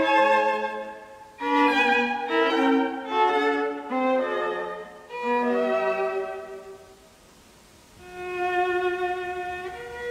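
Solo violin playing a melody in short phrases, with vibrato on the held notes. There is a pause about seven seconds in, then longer held notes.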